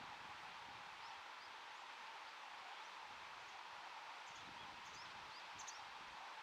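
Faint outdoor ambience: a steady hiss with scattered short, high, upward-sweeping chirps of small birds, a few coming close together in the second half.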